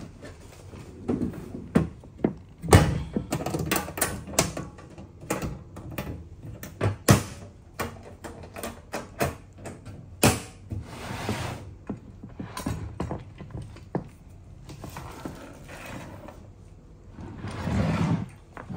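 Hydraulic hoses and their metal fittings being handled at a hand pump's valve block on a wooden workbench: a string of irregular clicks and knocks.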